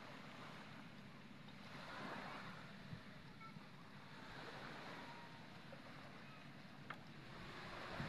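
Faint outdoor wind and sea noise on a boat, a steady hiss that swells and eases every few seconds, with a couple of small knocks.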